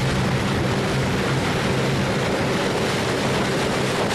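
Motorboat engine running steadily under way, a low even hum over a constant hiss of water and air rushing past the boat.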